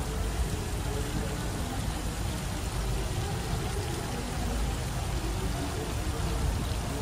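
Steady outdoor ambience: a continuous wash of noise, heaviest at the low end, with faint, indistinct voices in it.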